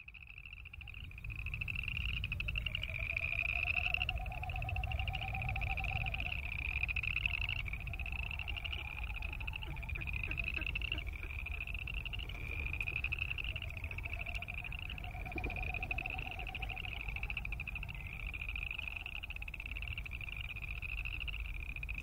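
A chorus of boreal chorus frogs calling: rising, finely pulsed trills, each about a second long, following one another with hardly a break, fading in over the first second or so. A fainter, lower pulsing sound rises and fades twice, over a steady low rumble.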